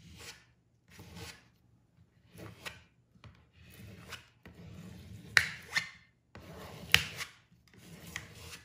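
Plastic gift card scraped in repeated strokes across contact paper, smoothing it down and pushing out air bubbles so it adheres. There are about seven strokes, with a few sharp clicks near the middle.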